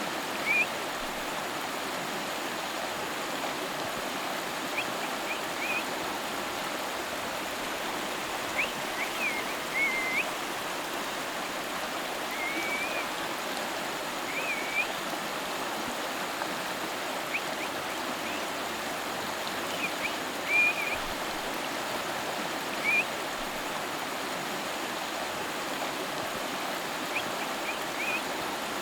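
River water flowing steadily, with short high chirps breaking in every few seconds.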